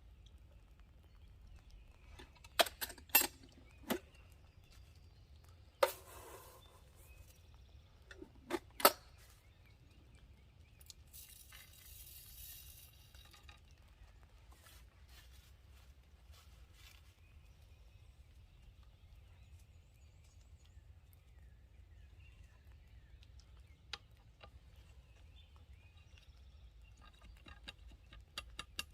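Scattered sharp clicks, knocks and clinks of a muzzleloading shotgun and its loading gear being handled: a quick cluster a few seconds in, two more knocks near nine seconds, a brief hiss around twelve seconds, and a few light clicks near the end.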